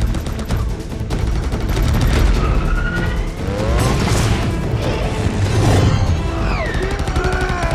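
Film action sound mix: the whoosh and rumble of flying robot drones' thrusters, with a large explosion about halfway through, over a musical score. Wavering whining tones slide up and down at times.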